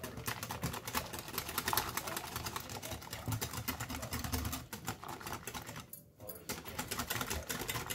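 Wire balloon whisk beating runny crêpe batter in a glass bowl: rapid, even clicking of the wires against the glass, pausing briefly twice in the second half.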